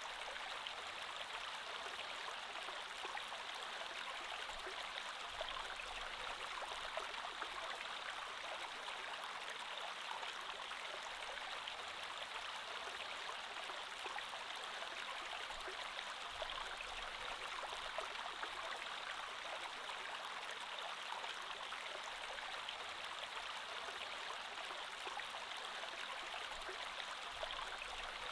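Creek water flowing over stones: a steady, even rush with fine splashing and trickling detail.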